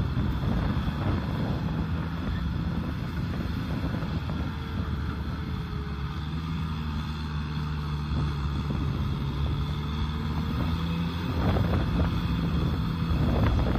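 Kubota M6040SU tractor's four-cylinder diesel engine running steadily under load as it pulls a rotary tiller (rotavator) through the soil, with some wind on the microphone.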